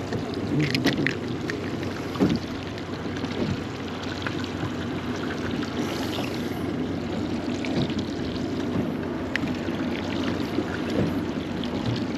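Water lapping and sloshing against a small fishing boat's hull, steady throughout, with a few light clicks and taps from handling the fishing pliers and the hooked snapper.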